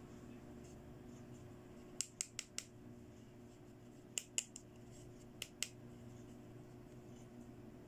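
Sharp plastic clicks as fingers handle a small plastic toy nail polish bottle: four quick clicks about two seconds in, three more about two seconds later, then two, over a faint steady hum.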